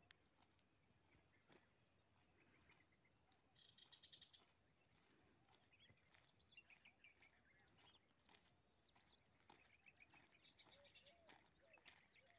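Small birds chirping and calling, faint, with many quick rising and falling chirps throughout and a brief buzzy trill about four seconds in.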